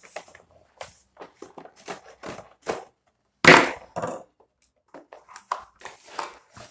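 Cardboard packaging and paper inserts being handled: scattered rustles, taps and light knocks, with one louder rustling scrape about three and a half seconds in.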